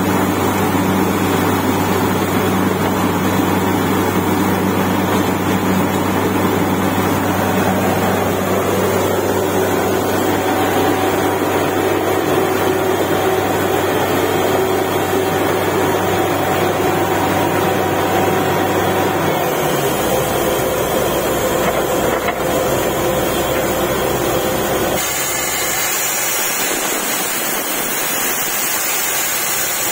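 Truck-mounted borewell drilling rig running under load, its engine and air compressor giving a loud, steady drone while the drill blows out a spray of water and rock cuttings. About twenty seconds in the low drone drops lower, and about five seconds later it falls away under a brighter hiss.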